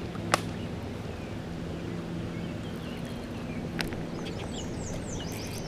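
Baitcasting reel being worked after a cast. There is a sharp click as the spool engages, then a steady low gear hum of the retrieve for about three and a half seconds, ending in another click. Moving water rushes underneath, and a few short bird chirps come near the end.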